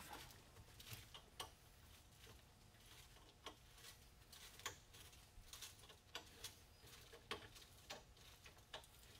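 Faint, irregular metallic clicks of a C-clamp's sliding T-bar handle as the clamp is turned loose from a leaf spring pack, with a low steady hum underneath.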